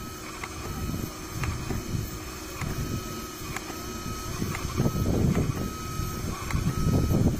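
Portable safflower picking machine running: a steady motor whine with suction through the hose and a faint regular tick about once a second. There are louder bursts of rushing noise about five and seven seconds in.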